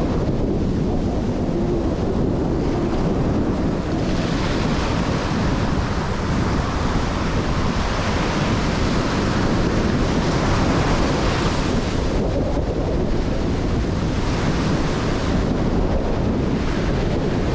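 Ocean surf breaking and washing up a sandy beach, with wind buffeting the microphone. The wash swells louder for several seconds midway and again near the end as waves run in.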